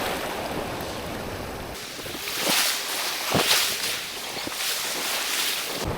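Waves washing and wind buffeting the microphone, swelling and easing, with a few short clicks in the middle.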